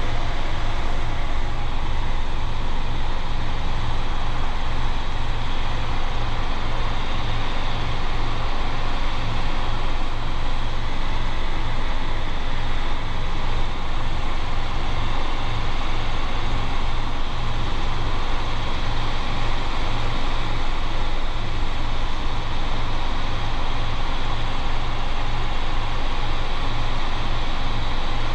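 Robinson R22 helicopter in cruise flight heard from the cabin: the piston engine and rotor make a steady drone with a fast, even low throb.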